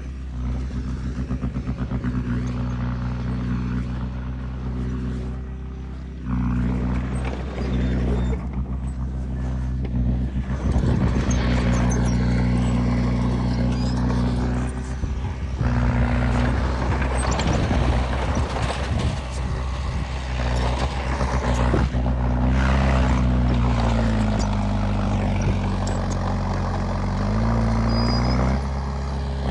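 Heavy diesel engine of earthmoving machinery running steadily, its pitch sagging and recovering twice as it takes load. Rough clattering and scraping rise over the engine through the middle.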